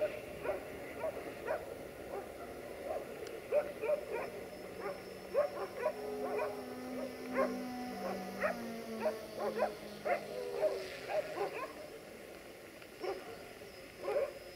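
A dog barking over and over in irregular runs of short barks.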